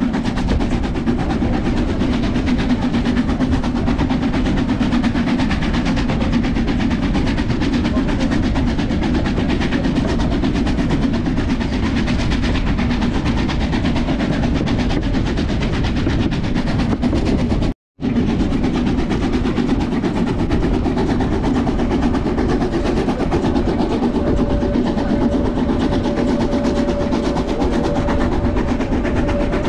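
Steam train running on the Brocken line: a steady, loud rumble of wheels on the track. The sound drops out for a moment about 18 seconds in, and a steady higher tone joins over the last few seconds.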